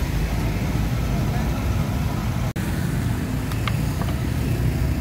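Steady low rumble of street traffic, with a momentary break about halfway through and a couple of brief high clinks near the end.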